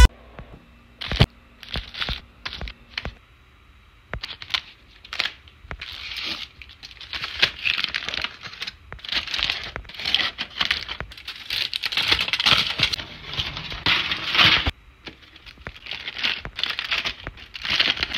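Aluminium foil wrapper of a giant Hershey's chocolate bar being peeled back by hand, crinkling and tearing. A few scattered crinkles come first, then near-continuous crinkling from about four seconds in, with a short break near the end.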